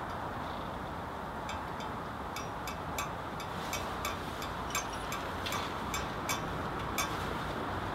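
Irregular light metallic clicks and taps, about two a second, from hand tools working on a riding mower's engine, over a steady background rumble.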